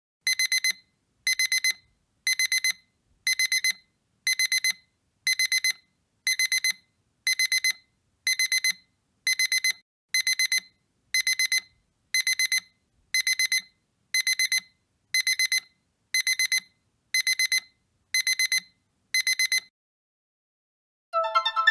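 Digital alarm clock beeping: a group of four quick, high, electronic beeps, repeated about once a second some twenty times before it stops. Keyboard music comes in near the end.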